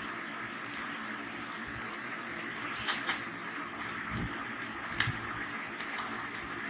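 Steady background hiss with a few faint clicks and taps, about three and five seconds in, from a screwdriver and small screws being handled while a TV's back panel is unscrewed.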